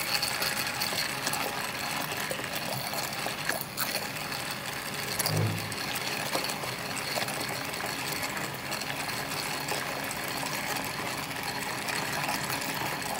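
Immersion hand blender running steadily in a small metal saucepan, its blade puréeing fruit jam with whole fruit pieces. A brief low hum rises over it about five seconds in.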